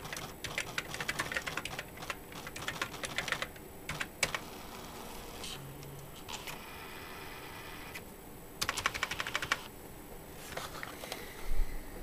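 Fast typing on the keyboard of a Brother EP-43 battery-powered laptop typewriter, then the machine's thermal print mechanism printing the typed line in short runs of rapid ticking as it catches up from its memory buffer. A low thump near the end.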